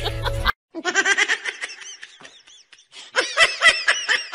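High-pitched laughter in quick repeated pulses, fading for a moment and then louder again about three seconds in. It follows an abrupt cut from a different sound about half a second in.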